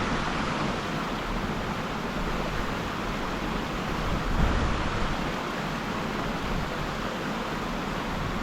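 Steady rush of a mountain stream's flowing water, with a low bump on the microphone about four seconds in.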